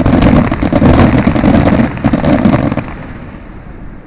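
Aerial fireworks bursting in rapid succession with dense crackling, dying away after about three seconds.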